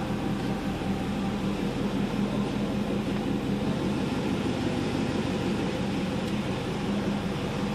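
BMW E38 740d's twin-turbo V8 diesel with straight-piped exhaust, running steadily at low revs, heard from inside the cabin.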